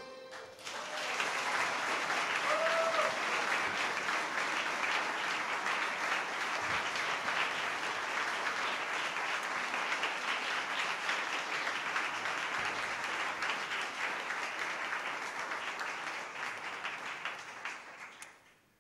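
Audience applauding, breaking out just after the accordion's last chord dies away and fading out near the end.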